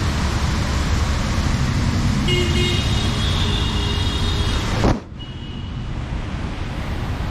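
Rain and city street traffic noise, with a vehicle horn sounding for about two and a half seconds midway. About five seconds in, the sound cuts suddenly to a quieter, duller hiss.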